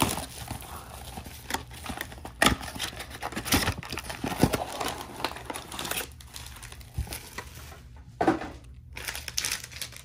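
A cardboard Panini Prizm Mega Box being opened and its foil card packs handled: irregular crinkling and rustling of the foil wrappers with sharp knocks and scrapes of cardboard, busiest in the first six seconds and quieter after.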